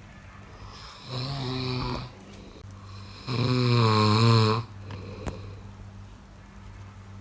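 Snoring: two drawn-out pitched snores, about a second in and again just past the three-second mark, the second louder and longer, with a faint steady low hum underneath.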